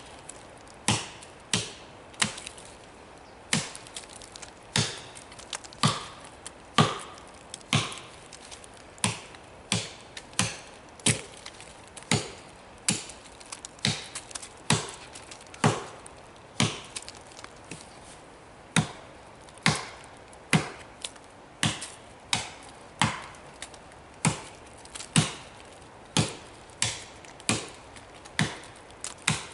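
Hultafors Classic Hunting Axe chopping into a downed silver birch log with light swings that carry no weight: a steady series of sharp chops, about three every two seconds.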